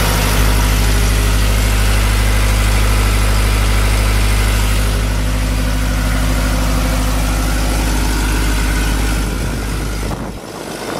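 Atlas Copco XAS 85 towable air compressor's diesel engine running at a steady idle; its low note fades out near the end.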